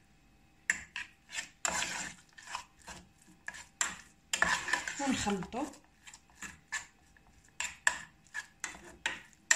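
Metal spoon scraping and stirring soft curd cheese around the sides and bottom of an aluminium saucepan, in a quick irregular run of scrapes and clinks.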